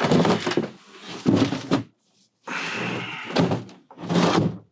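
Several heavy bangs and thuds about a second apart, with a stretch of rough scraping in the middle: interior wall and cabinet panels being pried loose and knocked about during demolition.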